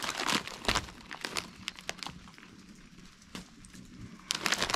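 Plastic Cheetos chip bag crinkling as it is handled and turned over, in irregular crackles, heaviest in the first second and again near the end.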